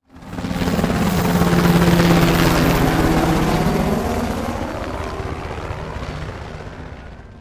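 Helicopter flying past and away with rapid rotor chop. It starts abruptly, is loudest about two seconds in, drops slightly in pitch about four seconds in, then slowly fades out.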